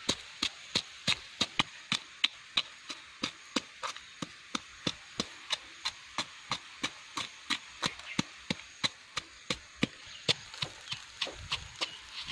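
A pestle pounding in a small bowl, sharp knocks in a steady rhythm of about three a second, as chilies are crushed.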